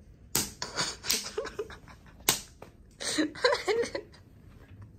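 Two sharp smacks about two seconds apart, each followed by short bursts of stifled laughter.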